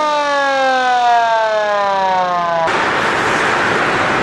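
Small red electric motor siren winding down, its pitch falling steadily. About two and a half seconds in it cuts off abruptly and gives way to a loud, even rushing noise.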